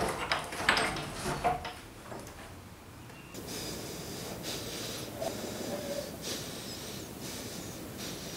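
A person breathing heavily, with a few sharp breaths in the first two seconds, then fainter breathing.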